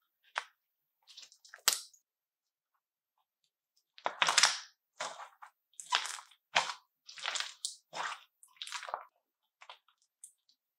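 Crunchy butter slime being squished and pressed, giving short crackling, popping crunches: a few in the first two seconds, then a run of them about every half second from about four seconds in.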